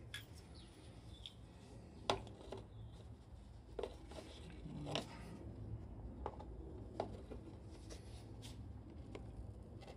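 Scattered small clicks and taps, about half a dozen over several seconds, from the plastic headlight shell and bulb holder of a motorcycle headlight being handled and worked on by hand, over a faint low background rumble.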